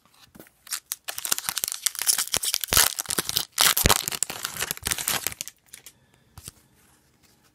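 Foil wrapper of a hockey card pack being torn open and crinkled, a dense crackling that starts about a second in and dies away after about five and a half seconds.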